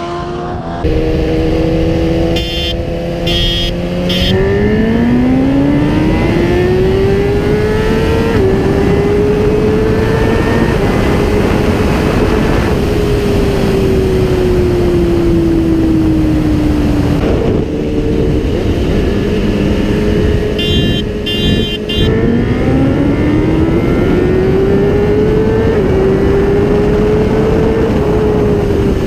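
Inline-four sport bike engine heard from the bike itself, pulling hard through the gears twice: the pitch climbs with a short dip at each upshift, then falls slowly as the rider rolls off. A steady rush of wind runs underneath.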